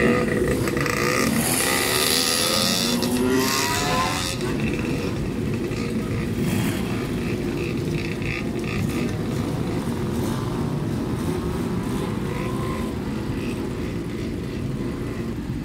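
Motorcycle engines through loud aftermarket exhausts. For the first few seconds they rev, the pitch rising and falling as bikes pull away, then a steady low idle rumble takes over.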